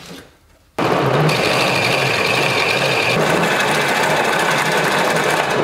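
Homemade bike-powered lathe running: a pedalled bicycle's rear wheel spins a wooden roller and belt that turn a log, while a hand tool cuts into the spinning wood. It starts abruptly about a second in and runs as a loud, steady, rhythmic mechanical whirr.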